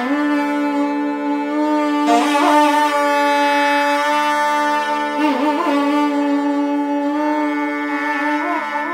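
Two nadaswarams playing Carnatic raga Kalyanavasantham together: long held reedy notes broken by ornamented slides about every three seconds, over a steady drone.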